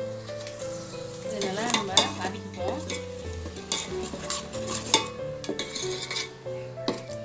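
Freshly ground shallot, ginger-garlic, green chilli and herb paste sizzling in hot ghee and oil, stirred with a metal spoon that scrapes and knocks against the pan again and again.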